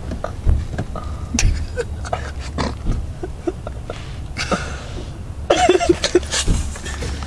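Short breathy human vocal bursts, like stifled coughs or laughs, twice in the second half, with scattered sharp clicks and knocks over a steady low rumble.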